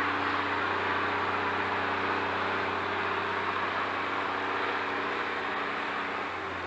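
Steady machinery hum with a rushing hiss over it, easing slightly near the end.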